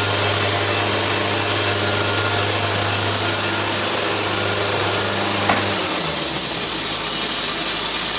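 Band sawmill cutting an oak log: a steady engine hum under a loud high hiss of blade and sawdust. About six seconds in the hum drops in pitch and fades away while the hiss carries on.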